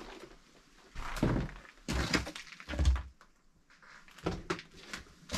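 Several dull thunks and knocks, as a door is opened and handled, with the loudest knock at the very end.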